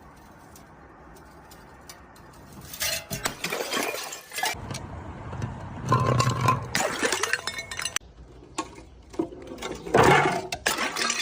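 Glass bottles breaking, with clinking and crunching shards in three bursts after a quiet start.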